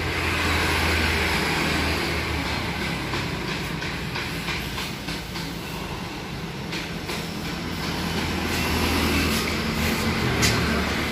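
Road traffic passing close by: a low vehicle engine rumble over steady noise, swelling at the start and again after about eight seconds.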